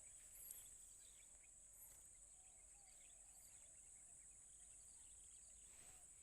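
Faint, steady high-pitched insect drone, with a few brief high chirps over it.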